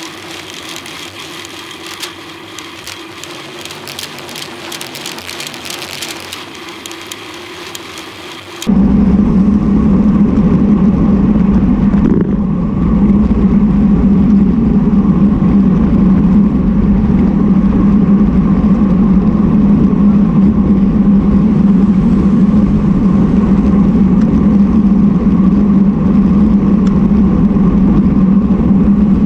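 Wind rushing over a bike-mounted camera's microphone, with tyre and road noise from bicycles riding at speed; it jumps to a much louder, heavy low rumble about nine seconds in.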